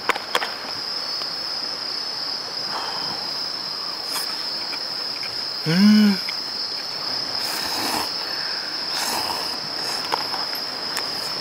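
Crickets chirping in a steady, unbroken trill. About six seconds in, a person gives one short voiced 'mm', the loudest sound, with a few faint handling clicks around it.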